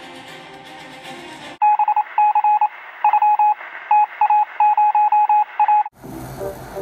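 Background music cuts off about a second and a half in and gives way to quick runs of electronic beeps at a fixed pitch, thin and narrow like sound over a phone line, in the manner of telephone keypad dialing tones. A different, fuller background sound comes in near the end.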